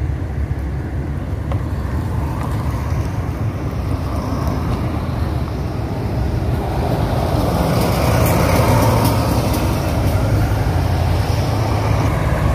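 Highway traffic: a steady low rumble of engines and tyres that swells from about halfway through as a heavy truck comes past close by.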